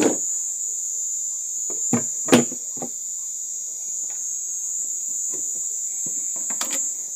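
Crickets chirring in one steady, high, unbroken tone. About two seconds in come two sharp clicks close together, the second the loudest sound here, from small plastic faucet pieces being handled.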